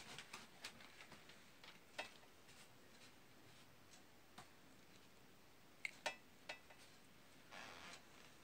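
Faint handling sounds of fingers twisting bare cable wires: scattered small clicks and ticks, the loudest a pair about six seconds in, and a short scrape near the end.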